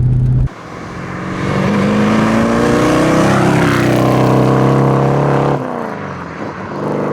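Rover 4.6 litre V8 in a Mk1 Ford Capri, through a custom stainless steel exhaust, accelerating past: the engine note climbs in pitch and grows louder, peaks about four seconds in, then drops in pitch and fades as the car goes by.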